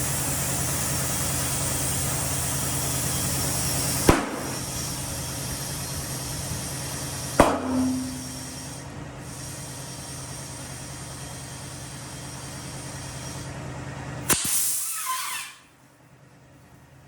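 Tire-shop machinery running with a steady hum and hiss, broken by three sharp metallic clicks. After the last click comes a short burst of air hiss, and then the machine stops.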